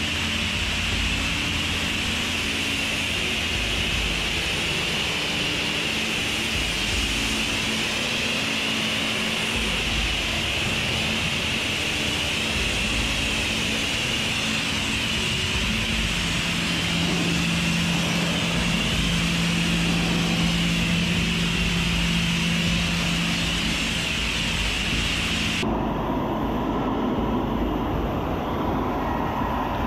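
Pressure washer spraying a jet of water onto a truck's body panels and glass for a rinse: a loud, steady hiss of spray with a low hum under it. Near the end the hiss loses its high edge and turns duller.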